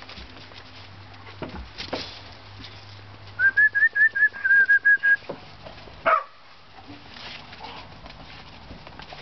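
An animal's call: a quick run of about a dozen short, high, whistle-like notes, loud and close, lasting under two seconds. It is followed about a second later by one short sharp cry that falls in pitch.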